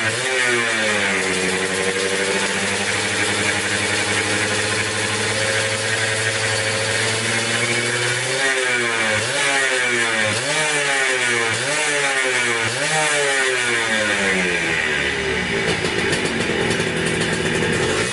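Suzuki Satria two-stroke single-cylinder motorcycle engine running while its carburettor is being set. The revs drop back and hold steady for several seconds. About eight seconds in, the throttle is blipped up and down some six times before the engine settles again.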